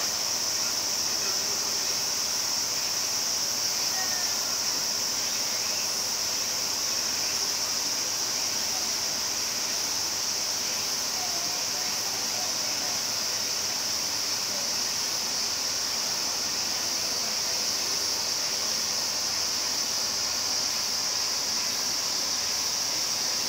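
Steady, unbroken high-pitched drone of insects calling, with faint distant voices underneath.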